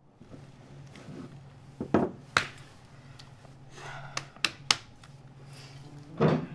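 Several sharp knocks and clicks, with a soft rustle about four seconds in, over a low steady hum in a small room.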